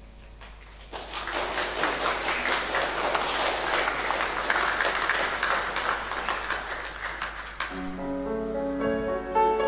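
Congregation applauding in a reverberant church, starting about a second in and lasting about six seconds. As the clapping dies away near the end, keyboard music starts playing a run of notes.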